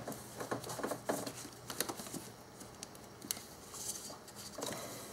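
Gloved hand handling a rubber heater hose in an engine bay: a scattering of faint, irregular clicks and rustles as the hose is moved and pressed into place.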